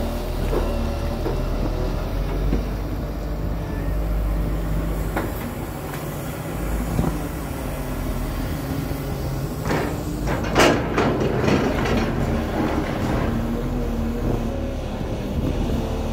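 JCB tracked excavator's diesel engine running steadily under hydraulic load. A burst of clanks and scrapes comes about ten seconds in.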